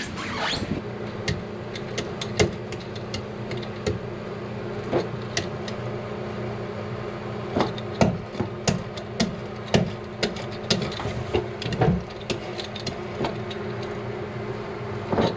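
Metal fiberglass laminating roller worked over epoxy-wet fiberglass tape to press it down and work out air bubbles, giving irregular sharp clicks and rattles that come thickest in the second half. A steady low hum runs underneath.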